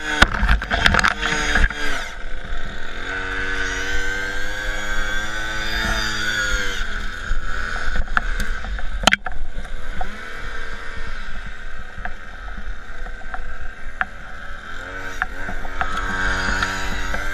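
A small engine running steadily, its pitch wavering up and down, with a few sharp clicks and knocks, one loud click about halfway through.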